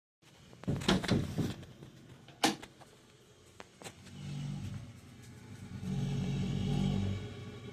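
Lochinvar water-heating unit rumbling: a few sharp knocks in the first couple of seconds, then a low rumble comes in twice, briefly about four seconds in and again, longer and louder, from about six seconds.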